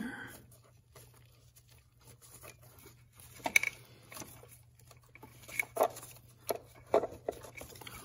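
Scattered clicks, knocks and rustles of gloved hands working plastic wiring-harness connectors and wires loose, the sharpest clicks about three and a half seconds in and near the end, over a faint steady low hum.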